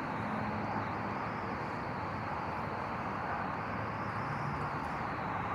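Steady outdoor rushing noise, with the faint low hum of honey bees flying past near the hive now and then.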